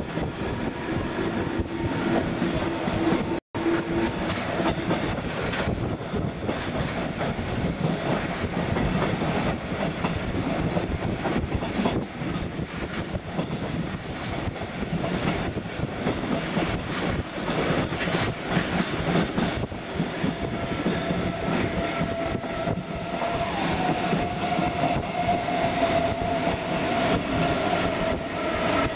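Passenger train running over the tracks, heard at an open carriage window: a steady rumble with the clatter of the wheels over rail joints and points. The sound cuts out completely for an instant about three and a half seconds in, and a steady whine joins in over the last several seconds.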